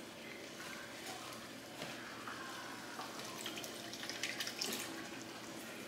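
A pan of thickening gravy simmering and being stirred over a steady fan hum. About three and a half seconds in, chicken broth is poured from a carton into the hot pan, splashing and crackling.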